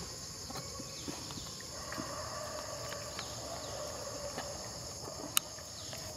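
Steady high-pitched drone of insects, with a lower steady hum joining about two seconds in and a single sharp click about five seconds in.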